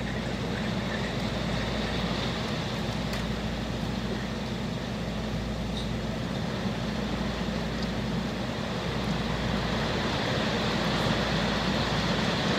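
Steady rush of heavy thunderstorm rain and wind with a deep rumble, heard from behind rain-streaked window glass. It grows slightly louder near the end.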